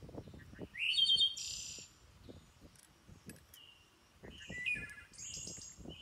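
Birds chirping outdoors: a rising call about a second in, the loudest sound here, and another run of chirps near the end. Underneath are soft low knocks from a screwdriver and hands working a metal bicycle bell's clamp.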